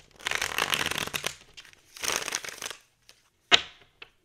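Riffle shuffle of a tarot deck: two quick runs of fast card-edge flutter, followed by one sharp tap a little over three seconds in.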